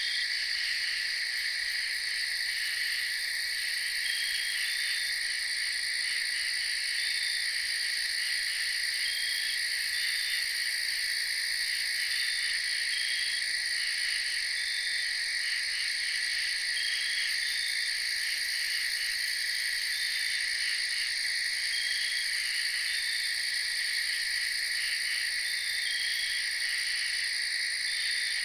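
A steady chorus of calling frogs and insects: several high, unbroken trills layered together, with short chirps scattered irregularly over them.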